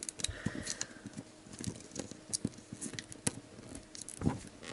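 Scattered small clicks and crackles of fingers picking at and peeling the plastic wrap and tear strip of an L.O.L. Surprise! Under Wraps toy capsule.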